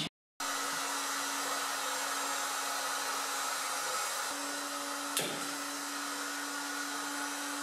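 Gas burners on a glass-welding machine hissing steadily as they heat the glass neck of a colour picture tube to seal in a new electron gun. A steady low hum runs under the hiss, and there is a single click about five seconds in.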